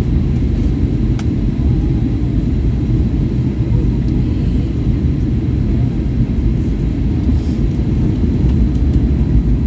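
Steady low rumble of a Boeing 737-800's CFM56 engines and the airflow, heard inside the passenger cabin during the descent on approach with the flaps extended.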